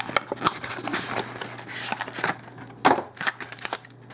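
Crinkling and rustling of the plastic and cardboard packaging of a Magic: The Gathering intro pack being opened by hand, with scattered clicks and a louder crackle about three seconds in.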